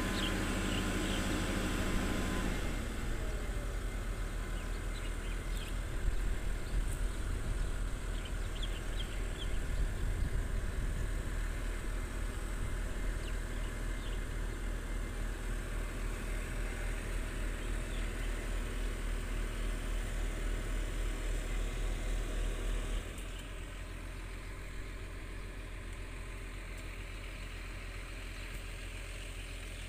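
Diesel engines of crawler excavators, a Volvo EC210B long-reach and a Hitachi ZX200, running steadily as they dig. The sound drops to a quieter, steady drone about three quarters of the way through.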